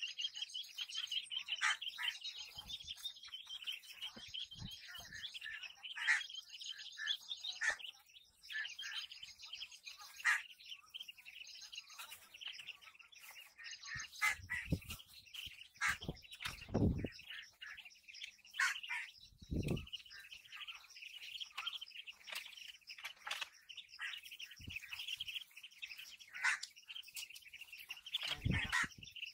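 A flock of ducklings peeping continuously in high, rapid chirps, with a few low dull bumps in the second half.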